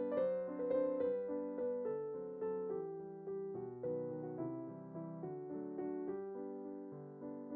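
Gentle solo piano background music, notes struck about twice a second and left to ring.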